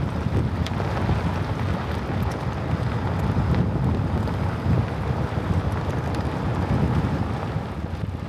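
Off-road buggy driving along with a steady low rumble, and wind buffeting the microphone.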